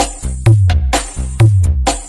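Bass-heavy dance music played at full volume through a large mobile PA sound system during a sound check. A deep kick with a falling bass note hits about once a second.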